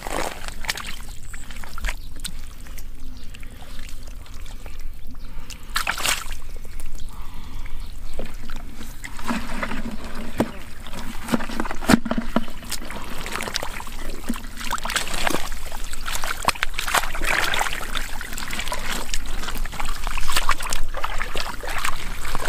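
Muddy water sloshing and splashing, with many irregular splashes, as someone works through shallow mud and water catching fish.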